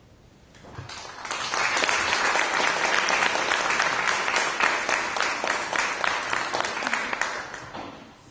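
Audience applauding, swelling up about a second in and dying away near the end.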